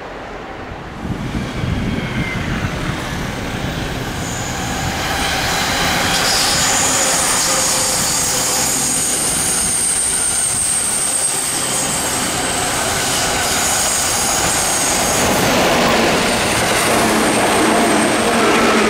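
EF64 1000-series electric locomotive hauling a 205-series commuter EMU, the train running past with a steady rumble of wheels on rail and a high-pitched wheel squeal over it. The sound starts abruptly about a second in and holds steady.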